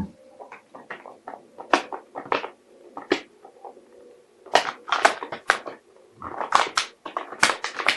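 A dog's plastic bottle crinkling and crackling in short, irregular bursts as two dogs handle and tussle over it.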